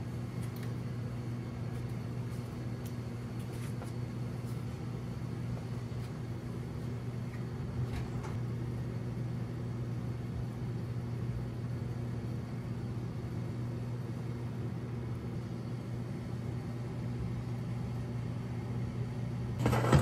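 Steady low hum of a running kitchen appliance, with a few faint clicks.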